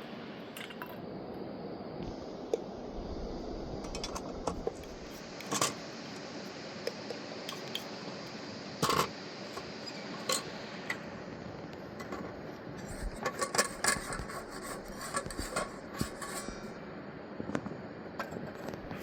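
Dishes and utensils clinking, knocking and scraping now and then, with a run of clinks about two thirds of the way through, over the steady rush of a mountain river.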